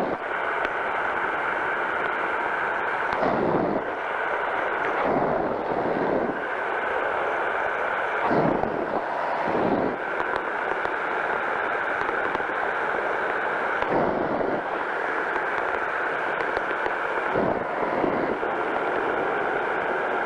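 Powered parachute engine and propeller running steadily in flight, a constant drone, with several brief surges of low wind rumble on the microphone.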